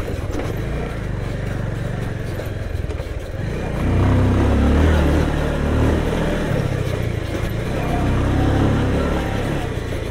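Bajaj Pulsar motorcycle's single-cylinder engine running under load with a rider and pillion aboard. The engine note swells about four seconds in, eases, and swells again around eight seconds.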